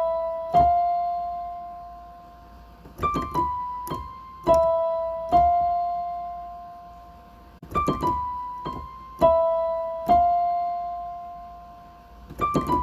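Background music: piano notes struck and left to die away, in a phrase that repeats about every four and a half seconds.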